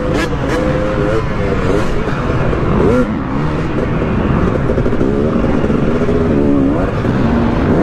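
Dirt bike engine revving hard on a dirt track, its pitch climbing and dropping over and over as the rider opens and closes the throttle through the corners and jumps.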